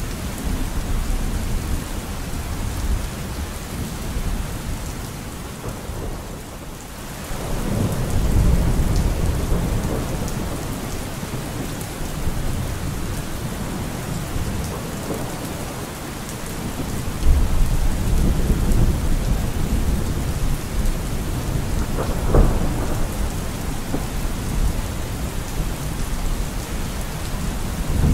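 Steady rain with low rolling thunder, swelling about eight seconds in and again around seventeen seconds, with a sharper thunderclap a little after twenty-two seconds.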